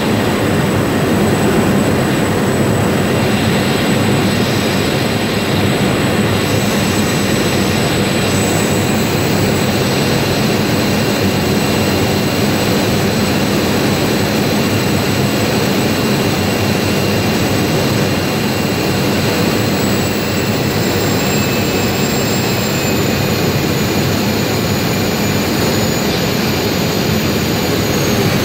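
Floatplane's engine and propeller running steadily at close range on approach for a water landing, a dense drone with a high whine on top that falls slightly in pitch late on as power comes back.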